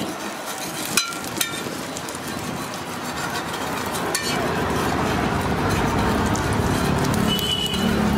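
Egg omelette sizzling in oil on a flat griddle, with a metal spatula clinking against the griddle twice about a second in and once more around four seconds in.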